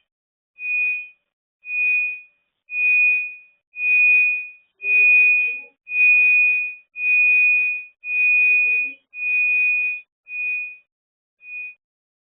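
Electronic alarm beeping a single high tone about once a second. The beeps swell longer and louder toward the middle, then shorten and fade near the end.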